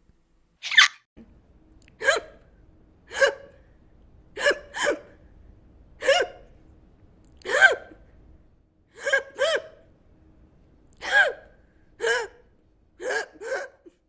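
A person hiccupping over and over, a short voiced "hic" about once a second, several coming in quick pairs.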